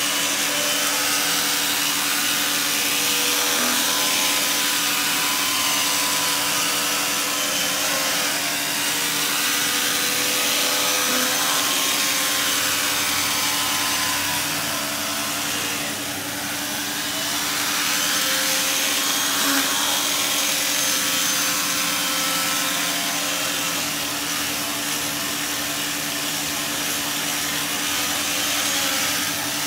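Janilink carpet steam cleaner's vacuum motor running steadily as its hand tool extracts water from carpet: a loud hiss of suction over a steady hum, with a whistling tone that wavers in pitch as the tool moves over the carpet.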